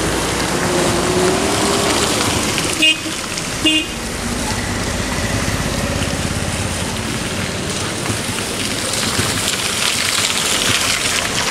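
Traffic crawling along a wet, potholed road: engines and tyres in the puddles under a steady hiss, with two short toots of a vehicle horn close together about three seconds in.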